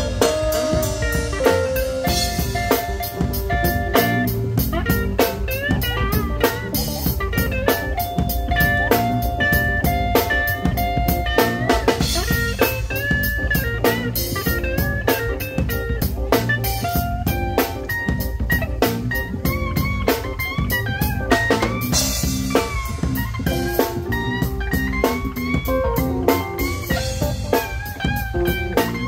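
Blues band playing an instrumental passage: electric guitar lead lines with bent notes over drum kit, bass guitar and keyboards.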